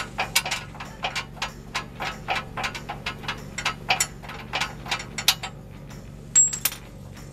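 Quick, irregular metal clicking, about four clicks a second, from the torsion bar key and unloading tool on a Chevy/GMC K1500's front suspension. Rattling loose like this shows the torsion bar's tension is now carried by the tool. Two sharper clicks come near the end.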